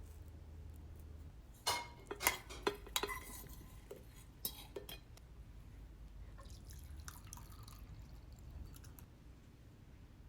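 Light clinks and taps of dishes and utensils being handled: a quick cluster about two seconds in, a couple more near the middle, then fainter ticks.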